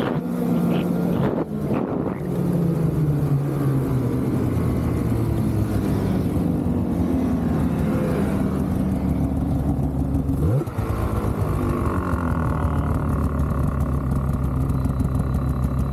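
Polaris 850 Assault snowmobile's two-stroke twin engine slowing down, its pitch falling over several seconds, then settling to a steady low run for the last few seconds.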